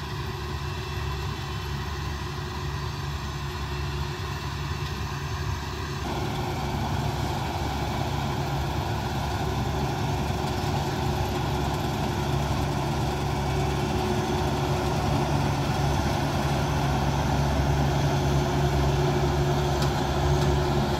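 Rostselmash KSU-1 self-propelled windrower's diesel engine running steadily as the machine mows hay, getting louder toward the end as it comes closer.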